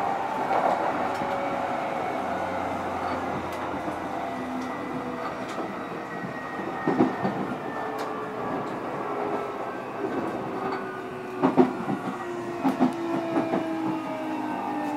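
JR East E531 series motor car's VVVF inverter and traction motor whine, several tones falling slowly in pitch as the train slows, over rail running noise. The wheels knock over track joints about 7 seconds in and again in a cluster from about 11 to 13 seconds in.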